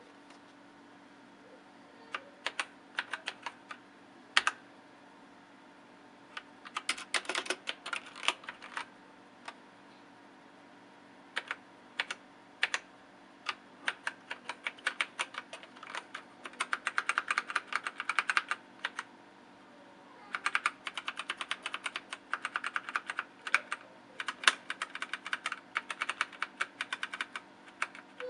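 Typing on a READSON Kananic TK-1 mechanical keyboard with brown switches: scattered single keystrokes at first, then fast runs of keypresses with short pauses between them in the second half.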